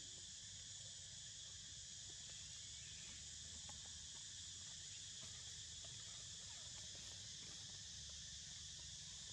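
Faint, steady high-pitched insect hum, like crickets or cicadas, over a low rumble, with a few faint ticks.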